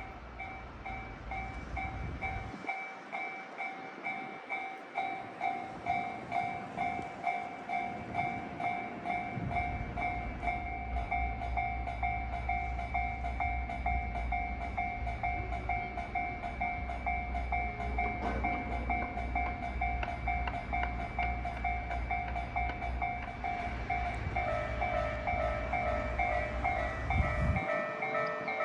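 A Japanese level-crossing alarm bell rings steadily in its even kan-kan rhythm. A Keikyu electric train rumbles through the crossing from about ten seconds in until shortly before the end. About three-quarters of the way through, a second, lower-pitched bell tone joins the first.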